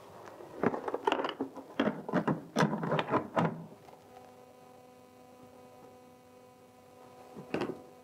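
Hard plastic knocks and clatters as the lid is handled and fitted onto the Rovin Ecospin's spin basket, then a steady electrical hum for a few seconds and one more knock near the end.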